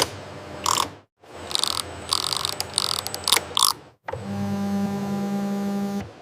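Mechanical sounds in short edited pieces: a run of irregular ratcheting clicks, then after a sudden cut about two seconds of a steady machine hum.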